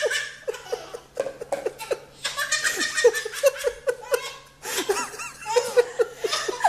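Hearty laughter in quick repeated bursts, with two short breaks for breath.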